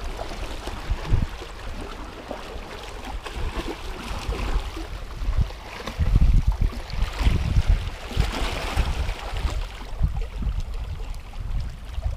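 Sea water sloshing and splashing against breakwater rocks, with wind buffeting the microphone in low rumbling gusts that grow stronger about halfway through.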